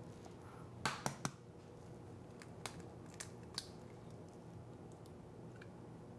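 An egg cracked with two sharp taps about a second in, followed by a few faint clicks of the eggshell as it is pried apart to separate the white from the yolk.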